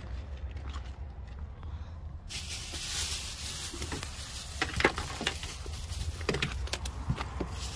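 Plastic carrier bags rustling and crinkling as they are grabbed and lifted, starting about two seconds in, with a few sharper crackles around the middle. A low steady rumble runs underneath.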